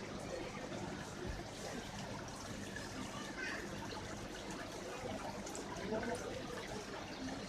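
Steady trickling and splashing of water from fish-tank filters and aerators, with faint voices in the background.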